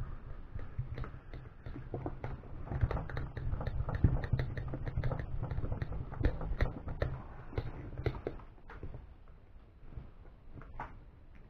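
Irregular small clicks, taps and scrapes of a screw and washer being handled and driven by hand into an aluminum RC steering bellcrank, over low handling rumble.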